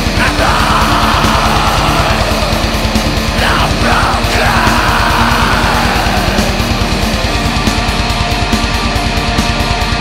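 Heavy metal music: a fast, even drum beat under a dense wall of distorted sound, with harsh yelled vocals about half a second in and again around four seconds.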